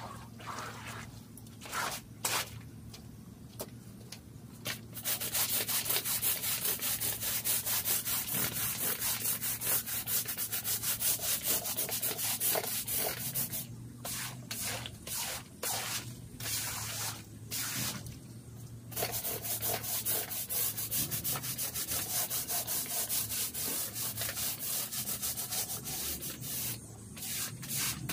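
Fast, rhythmic scrubbing against a rug's pile, in two long spells with a broken, patchier stretch between them.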